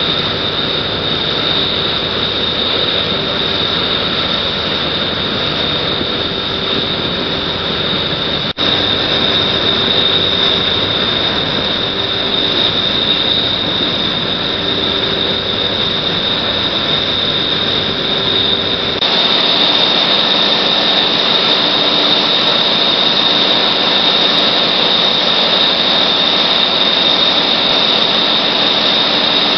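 Loud, steady heavy-machinery running noise with a high, steady whine over it. There is a brief dropout about eight seconds in. A little before twenty seconds in, the low rumble falls away and the sound becomes thinner and brighter.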